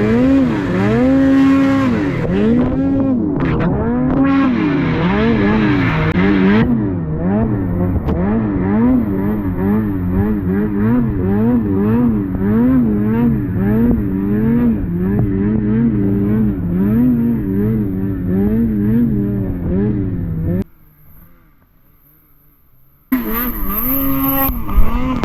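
Snowmobile engine revving up and down over and over, about once a second, as the sled rides through deep powder. About twenty seconds in the sound drops away suddenly for two seconds, then the engine is back.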